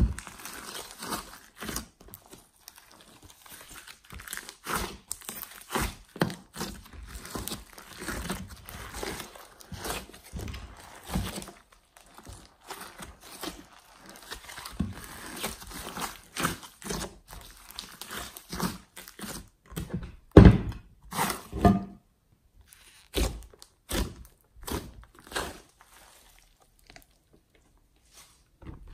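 Hands kneading, squeezing and stretching a thick batch of slime mixed with clay and glitter, making an irregular stream of sticky squishes, clicks and pops. The loudest pops come about twenty seconds in, and the last few seconds are sparser and quieter.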